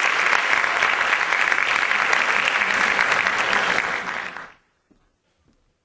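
Audience applauding, a dense steady patter of many hands clapping that dies away quickly about four and a half seconds in.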